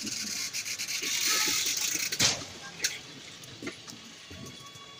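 Passenger coaches rolling slowly past a platform: a rushing hiss of wheels on rails that swells, has one sharp clank about two seconds in, and then eases off.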